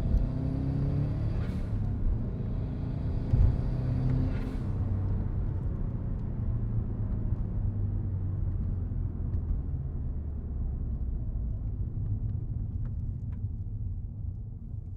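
1996 Subaru Impreza WRX's turbocharged flat-four engine running with a low rumble. Its pitch shifts a little over the first few seconds, then holds steady, and it starts to fade near the end.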